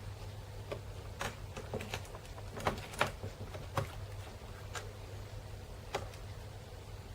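Scattered small clicks and taps from hands handling the laptop's screen parts, about eight in all, the loudest about three seconds in, over a steady low electrical hum.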